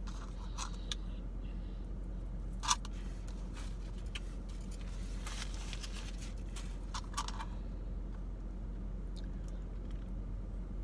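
Eating sounds: a plastic spoon clicking and scraping in a plastic sundae cup and wet mouth sounds of eating melted ice cream, over a steady low hum. A short papery rustle, a napkin being used, comes about halfway through.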